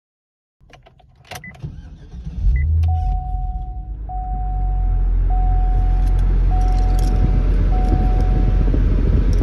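Cadillac CTS-V's V8 engine starting: a few clicks, then it catches with a sudden low burst about two and a half seconds in and settles into a steady idle. The car's warning chime sounds five times, evenly spaced, over the start.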